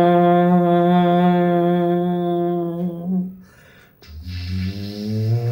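Human voice imitating an electric train by mouth: a long steady hummed drone that fades out about three seconds in. After a short gap a new low hum starts and slowly rises in pitch, like an electric motor picking up speed.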